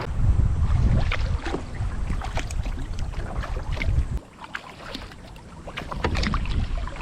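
Kayak paddle strokes: water splashing and dripping off the blades in many small, sharp splashes, over wind buffeting the microphone. The wind lets up briefly a little past the middle.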